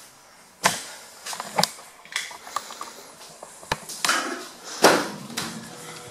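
Handling noise from a handheld camera carried by someone walking, with several sharp clicks and knocks and short rustles. A door handle is gripped and a door opened toward the end, and the loudest rustle comes about five seconds in.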